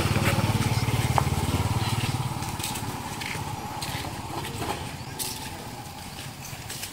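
A motor engine running close by, a low steady hum that fades away after about two and a half seconds.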